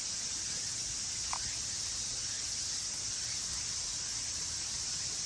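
Insects chirping steadily in a continuous high-pitched drone, with a low rumble underneath.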